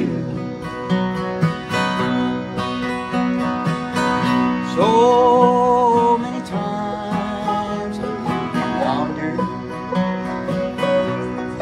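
Bluegrass band playing an instrumental break between sung verses: banjo and acoustic guitars picking, with a held, wavering lead note about five seconds in.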